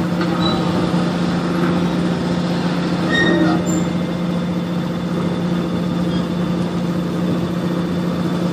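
Heavy lifting machinery, a crane with a hydraulic grab handling a concrete tetrapod, running with a steady mechanical drone and a constant low hum.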